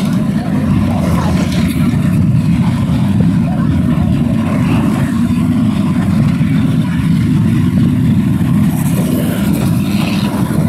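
Engines of battered buses and coaches running as they drive round a race track, a loud steady low drone.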